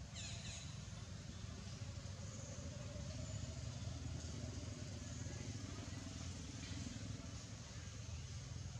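Steady low rumble of a distant motor vehicle engine, its pitch sliding slowly down and a little louder in the middle. Just after the start comes a brief high whistle that falls in pitch.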